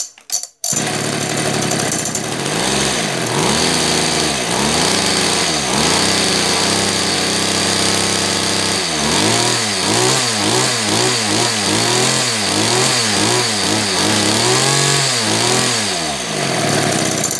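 Kawasaki TF24 two-stroke brush-cutter engine, newly fitted with a replacement carburettor, catches in the first second and runs. Its speed rises and falls in slow swells at first, then about twice a second through the second half, and it stops at the very end.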